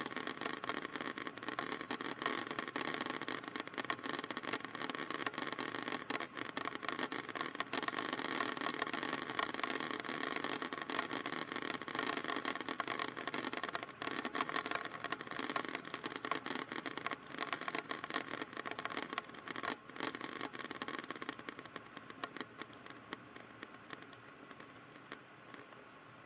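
Cessna 152 engine and cabin noise in flight: a steady drone with fine crackling over it, quieter over the last few seconds.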